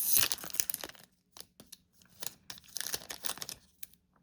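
Foil trading-card pack wrapper being torn open and crinkled. The crackly rustling comes in two bouts: one in the first second, and another from about two seconds in.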